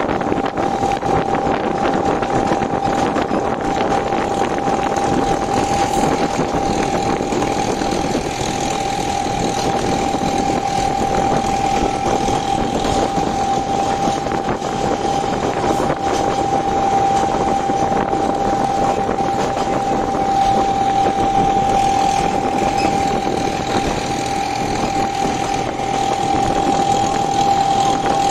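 Narrow-gauge diesel train running, heard from on board: a steady rumble and rush of noise with one steady whine held throughout.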